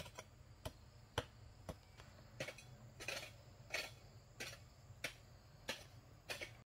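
A fairly regular series of short, light clicks and taps, about three every two seconds, over a faint low hum.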